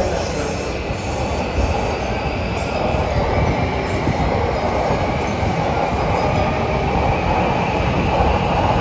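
Electric train running alongside a station platform, a loud steady rumble of wheels and running gear that grows slightly louder.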